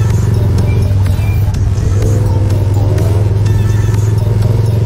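A GPX Legend Gentleman 200's single-cylinder engine runs steadily at low cruising speed, heard up close from a camera mounted on the bike, with surrounding traffic noise. From about two to three seconds in, a wavering higher-pitched sound rises briefly over the engine.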